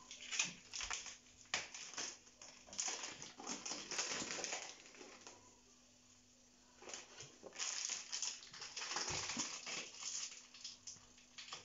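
Rustling and crinkling of a plastic packet with light knocks and clicks of things being handled on a kitchen counter, in two spells with a short quiet pause between them.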